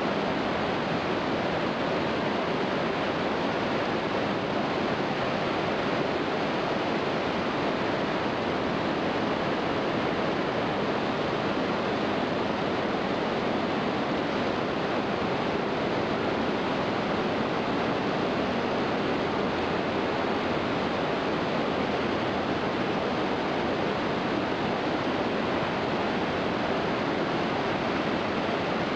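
Steady rushing roar of Iguazu Falls, a massive waterfall crashing into the gorge, even and unbroken throughout.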